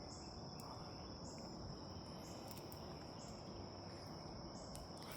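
Crickets or similar insects trilling: one steady high-pitched trill, with a fainter, higher chirp repeating about once a second, over a quiet low outdoor rumble.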